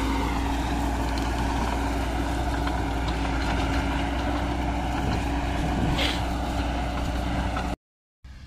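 Tractor engine running steadily under load while its rear-mounted rotavator churns stubble into dry soil, a constant low hum throughout. The sound breaks off suddenly near the end and comes back much quieter.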